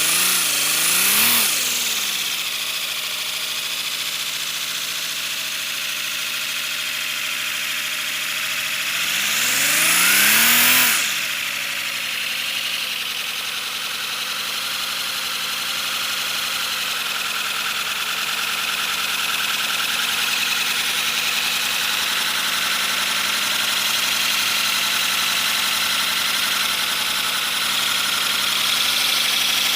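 3D-printed PLA V12 air engine running on compressed air, a steady mechanical whir with an air hiss. It speeds up and slows back down about a second in, then speeds up again in a longer climb that drops off suddenly about eleven seconds in.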